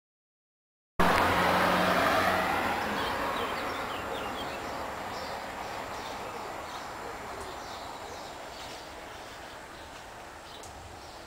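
A steady rushing noise starts suddenly about a second in and fades slowly, with a low hum under it at first. Small birds chirp throughout.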